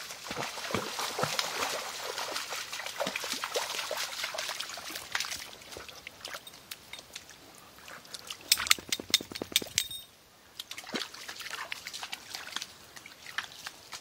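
Dogs wading through a shallow creek: water splashing, trickling and dripping in many small irregular splashes. A quick run of louder sharp clicks comes about two-thirds of the way in.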